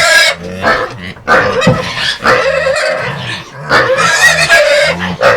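Pigs squealing and grunting, four or five loud squeals in a row over lower grunts, from pigs that did not get enough feed.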